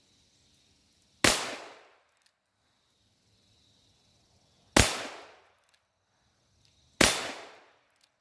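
Three shots from a Smith & Wesson Model 617 .22 LR revolver fired single action: one about a second in, one near the middle and one a couple of seconds after that. Each is sharp and dies away over about half a second.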